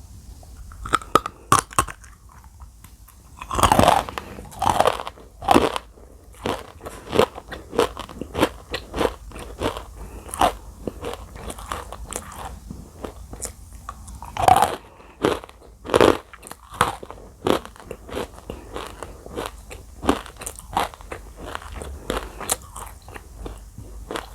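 Close-miked biting and chewing of dry edible clay: a run of sharp, crisp crunches, with louder bites about four seconds in and again about fourteen and sixteen seconds in.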